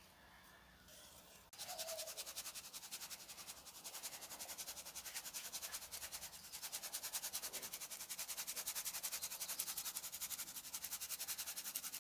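A spice shaker shaken rapidly and evenly over raw meat, dry rub granules rattling inside it and pattering out, several shakes a second. It starts abruptly about a second and a half in.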